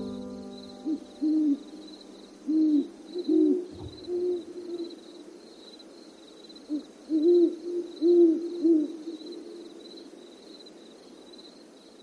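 An owl hooting in two bouts of several short, low hoots, each note rising and falling in pitch; the second bout is louder. There is a brief low thump about four seconds in.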